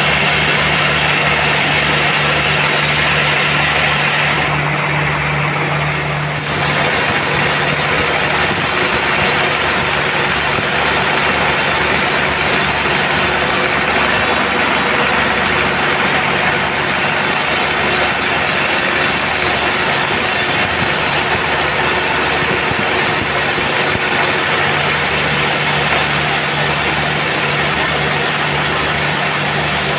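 Sawmill running steadily with an engine-like drone. From about six seconds in to about twenty-four seconds a brighter hiss is added over it, as the saw blade cuts through a dry teak log.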